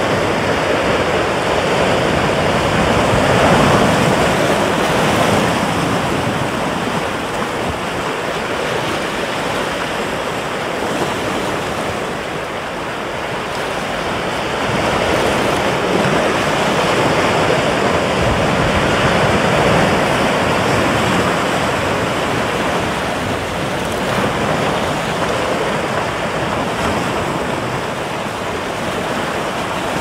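Ocean surf breaking on a beach: a continuous wash of waves that swells and eases every several seconds.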